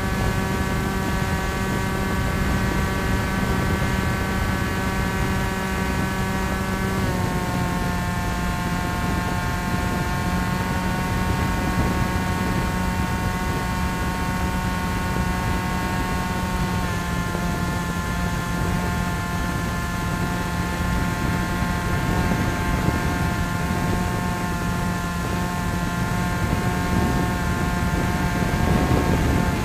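Electric motor and pusher propeller of a Bixler foam RC plane whining steadily in flight, recorded onboard over a rush of wind noise. The pitch steps down a little twice, once about seven seconds in and again about seventeen seconds in.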